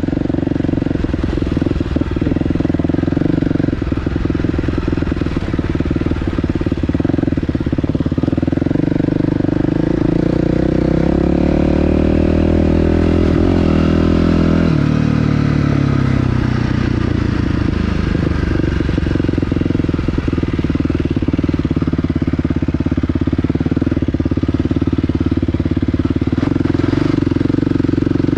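Dirt bike engine running under way. About ten seconds in, the revs climb for several seconds, then drop abruptly before settling back to steady running.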